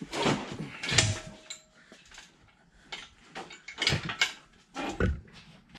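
About five sharp metal knocks and clunks, the loudest about a second in followed by a brief ringing tone. This is the cast-iron ram of a Bridgeport vertical mill being shifted on the turret's dovetails.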